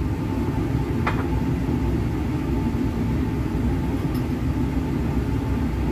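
Steady low rumble of a laboratory fume hood's ventilation airflow, with one light click about a second in.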